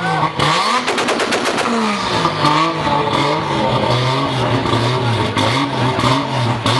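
Toyota Supra engine revved up and down again and again, its exhaust letting out runs of rapid pops and crackles like gunfire: backfires as flames spit from the exhaust.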